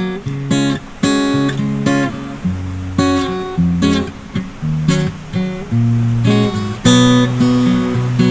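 Background music: acoustic guitar strummed and plucked in a steady rhythm of chords.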